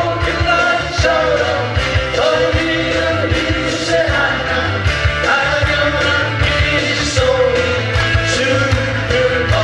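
Live acoustic band playing: singing over strummed acoustic guitars and congas, with a steady beat.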